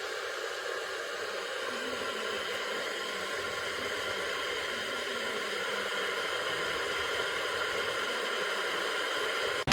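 Chefman 1.8-litre 1500 W electric kettle heating already-hot water towards the boil: a steady hissing rumble that slowly grows louder.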